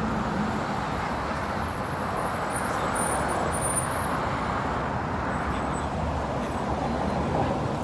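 Steady street traffic noise from vehicles going by, swelling a little around the middle.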